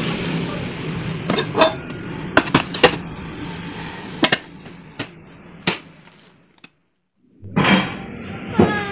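Kitchen items clinking and knocking, including a metal container lid, with a plastic bag rustling; after a short silence, a cat meows once near the end, the call falling in pitch.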